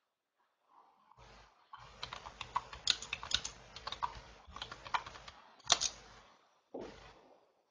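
Typing on a computer keyboard: quick runs of key clicks with short breaks, over a low hum that starts and stops with the typing.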